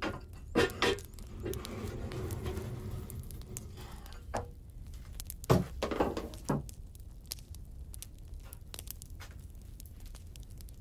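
Handling sounds: a few sharp knocks and clinks, the loudest about five and a half seconds in, with a stretch of rustling and scraping between them.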